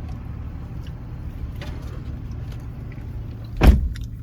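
Car engine idling, a steady low hum heard inside the cabin, with one loud thump about three and a half seconds in.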